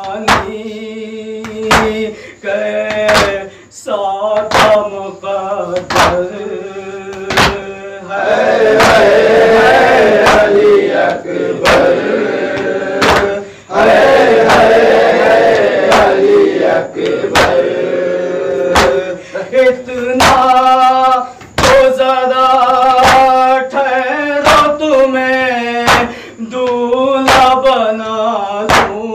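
A male noha reciter chanting a Shia lament, with a group of men singing the refrain in unison through the middle of the passage. Sharp, steady chest-beating (matam) strokes about once a second keep the beat.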